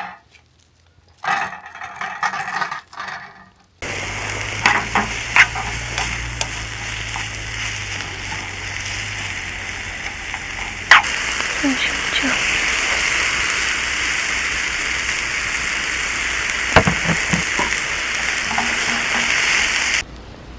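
Chicken breast searing in a frying pan, sizzling steadily. The sizzle starts suddenly a few seconds in and gets louder about halfway through. There are a few sharp knocks of a utensil against the pan, and the sizzle cuts off just before the end.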